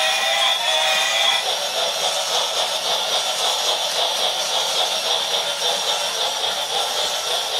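Battery-powered toy train running on plastic track: a steady whirring rattle from its small motor and wheels. A short electronic tune plays over it and stops about a second and a half in.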